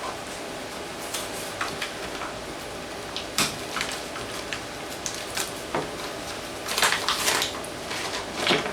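Scattered light knocks, clicks and scrapes of parts and tools being handled, loudest in a short clatter about seven seconds in and another near the end, over a faint steady hum.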